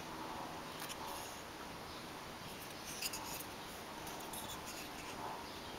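Faint handling noise of fingers turning a die-cast metal and plastic model starship: light rubbing and small ticks, a couple of them about one second and three seconds in, over steady room hiss.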